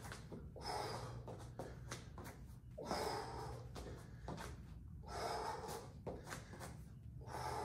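A man's sharp, forceful exhalations, one with each knee strike, repeating roughly every two seconds.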